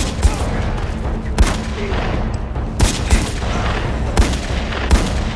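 Handgun shots fired in an uneven series, about seven in five seconds, over a steady low rumble.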